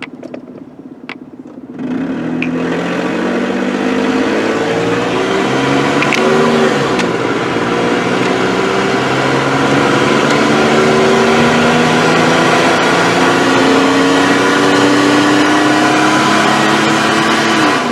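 2009 Nissan Frontier's engine accelerating hard from about two seconds in, its pitch climbing slowly and dropping at two gear shifts. The truck is down on power, which the mechanic puts down to a clogged catalytic converter.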